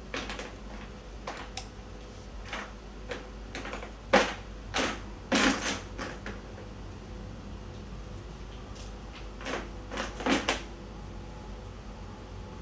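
Scattered small clicks and knocks from hands handling multimeter test probes and wiring on a workbench, over a faint steady hum. The clicks bunch together about four to six seconds in and again around ten seconds in.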